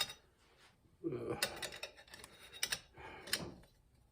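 Metal parts of a 700R4 automatic transmission clinking and clunking as they are handled and worked into the case: a click at the very start, then several sharp metal knocks between about one and three and a half seconds in.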